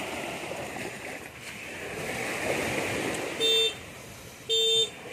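Two short horn toots about a second apart in the second half, each a steady pitched beep, over a steady rushing noise.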